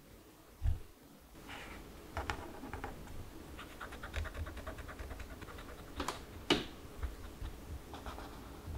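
Dot marker's felt tip tapped and pressed onto paper to stamp dots, then dragged in short strokes: soft taps and scratchy felt-on-paper sounds, with a few sharper taps and a quick run of small ticks a few seconds in.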